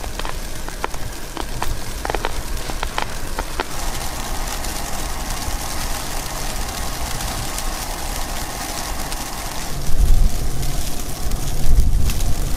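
Strong snowstorm wind, with scattered sharp ticks of driven snow for the first few seconds, then heavy gusts buffeting the microphone with a deep rumble from about ten seconds in.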